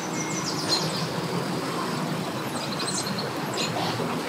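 Boat-ramp ambience: a steady low engine hum with birds chirping briefly near the start and again near the end.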